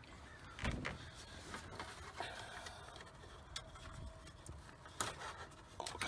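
A few light clicks and knocks of hands handling plastic dash trim and a turn-signal flasher relay under a truck's dashboard, with faint rustling between them.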